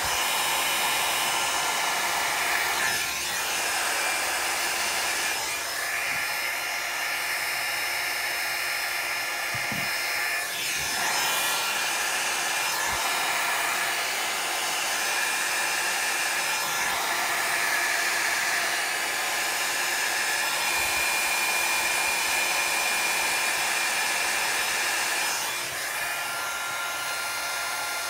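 Handheld hot-air tool blowing on wet alcohol ink. It runs as a steady whooshing hiss whose tone and loudness shift briefly a few times as it is moved about over the paper.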